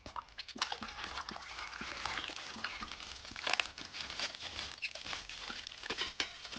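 Irregular clicks, taps and rustling of a plastic toy vehicle and its packaging being handled during unboxing.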